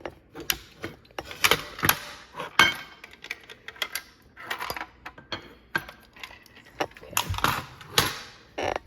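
Fire alarm pull station being worked by hand: a key rattling and turning in its reset lock and the metal cover being opened, an irregular string of clicks and clacks, loudest around two seconds in and again near the end.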